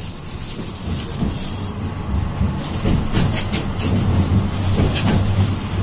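A vehicle running: a low steady hum with scattered rattles and clicks, growing louder over the first few seconds.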